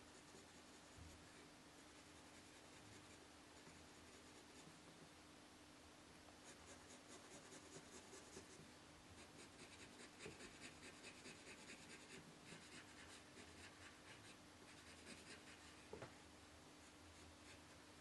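Soft graphite pencil shading on paper: runs of faint, quick scratching strokes, starting a few seconds in and thinning out near the end, over a faint steady hum.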